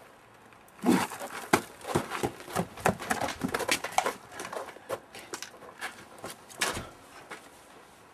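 A series of irregular knocks and scuffs, a few sharper ones standing out about a second in and again near the end.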